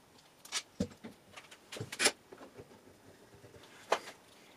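Hands working an American Scale Co. cast-iron woodworking vise and its wooden jaw: a handful of separate sharp knocks and clicks. The loudest comes about two seconds in and another near the end.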